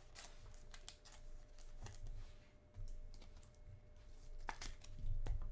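A trading card being slipped into a clear plastic sleeve and rigid card holder: scattered light plastic clicks and crinkles, a few louder ones near the end.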